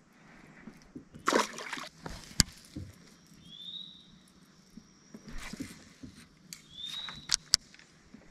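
Water splashing and sloshing beside a small fishing boat, with a few sharp clicks and knocks of handling. A short high chirp sounds twice.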